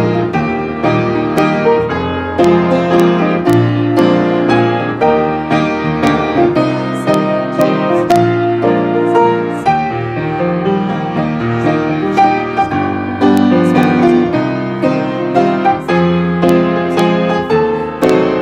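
Piano playing a steady, chord-based accompaniment to a church song, with no singing.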